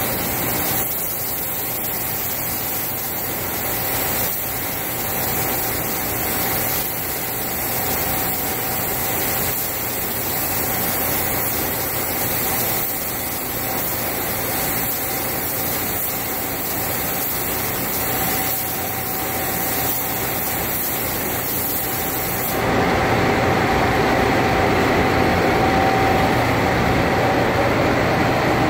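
Gravity-feed paint spray gun hissing steadily with compressed air as it lays clear coat on a car bumper. It grows louder for the last several seconds, with a faint steady whine underneath.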